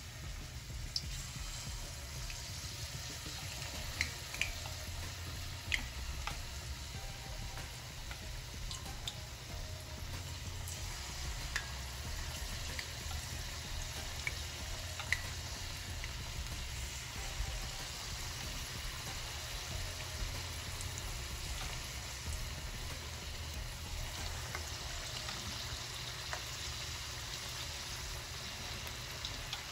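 Batter-coated chicken pieces deep-frying in hot oil in a wok: a steady sizzle with scattered sharp pops and crackles.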